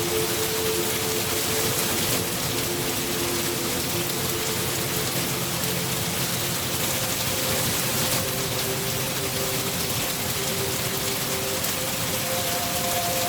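Steady, even rain falling without a break. Under it are a few soft held tones that change pitch every few seconds.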